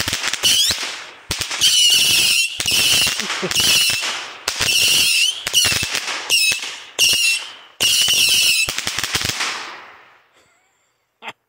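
A Saturn missile battery firing in rapid succession: a continuous run of short, shrill whistles overlapping with sharp cracks. The firing dies away about ten seconds in.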